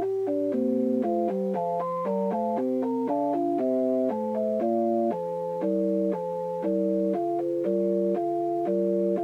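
Electronic tones from a MIDI laser spirograph's galvo driver board, playing a tune of several steady tones at once that step to new pitches every quarter to half second, with a faint click at each change.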